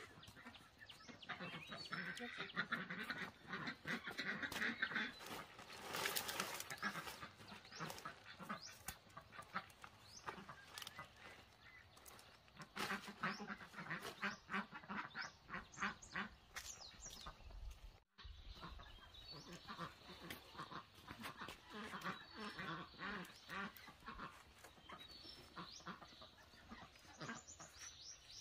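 Faint calls of farm fowl, such as ducks or geese, amid many short clicks and knocks, with a brief break in the sound about two-thirds of the way through.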